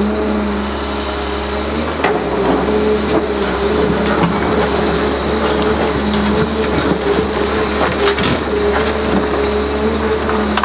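Hyundai 320 LC-9 crawler excavator working: its diesel engine and hydraulics run steadily under load while the bucket digs into rocky soil, with a few short clunks and scrapes of stones against the bucket.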